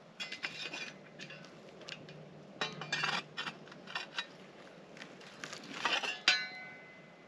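Metal cookware and utensils clinking and clattering as they are handled, in several short bouts. About six seconds in comes a sharper clank that rings for a moment.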